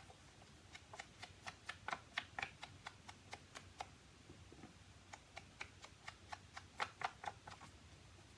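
Quick, irregular light tapping of an ink-loaded sponge dabbed against an ink pad and card stock, a few taps a second, stopping shortly before the end.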